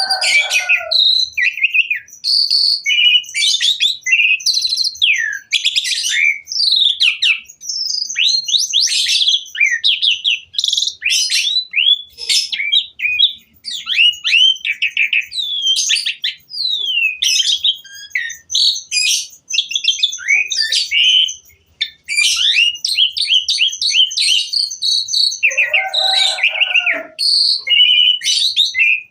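Asian pied starling (jalak suren) singing a long, varied song of whistles, chirps, sliding notes and rapid trills. The song is rich in mimicked phrases (isian). Harsher, lower notes come near the start and again about 26 seconds in.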